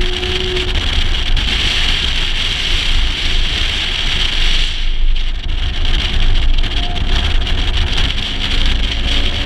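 Wind rushing and buffeting over an action-camera microphone mounted outside a moving 1956 Mercedes-Benz 300 SL, with low rumble and the car's engine and road noise under it.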